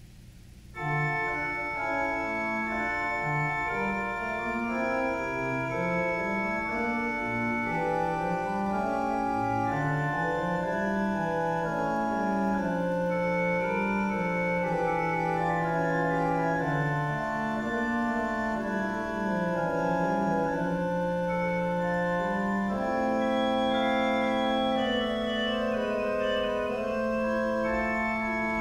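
Church organ playing held chords over a moving bass line, starting about a second in.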